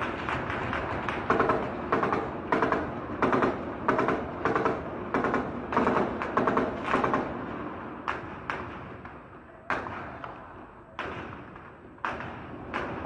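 Gunfire in an armed street clash: sharp shots echoing off the buildings, fired rapidly and irregularly for about the first seven seconds, then single shots a second or so apart.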